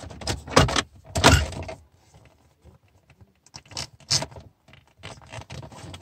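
Plastic shifter bezel and leather shift boot being pressed into a Ford Mustang's console: a cluster of rattling plastic clicks and scrapes in the first two seconds, then a few lighter clicks as the trim snaps into place.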